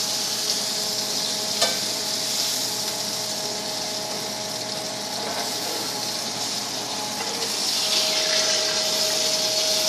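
Butter and meat juices sizzling steadily in a hot frying pan, over a faint steady hum. A single clink of metal tongs about one and a half seconds in.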